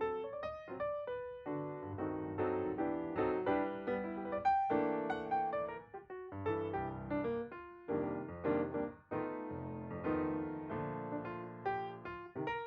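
Background piano music: a melody of quick notes over chords, each note struck and dying away.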